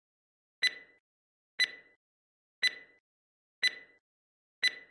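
Countdown sound effect: five short, high electronic beeps about a second apart, one for each second ticking down.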